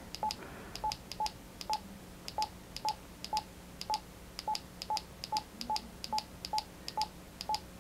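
Wouxun KG-UV8D handheld radio's key beeps as its menu is scrolled through: about sixteen short beeps at one pitch, roughly two a second, each with a small click of the button press.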